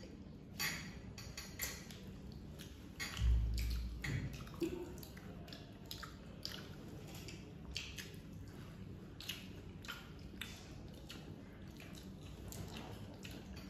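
People chewing and biting food, eating by hand, with many short wet clicks and smacks. A dull low thump about three seconds in is the loudest sound.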